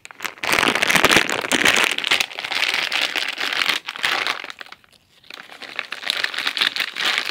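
Stiff plastic bag crinkling and crackling as it is handled and tugged at to get it open, with a brief pause about five seconds in.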